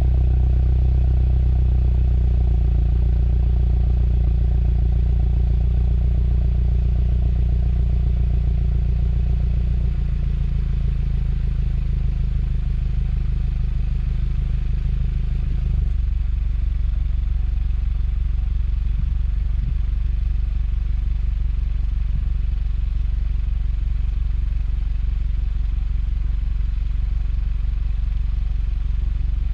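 Car engine idling through a newly fitted exhaust, a steady low drone. It drops to a lower, quieter idle about ten seconds in, and again at about sixteen seconds.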